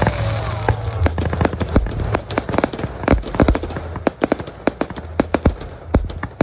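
Aerial fireworks going off: a rapid, irregular string of sharp bangs and crackling pops as shells and comets burst over the water.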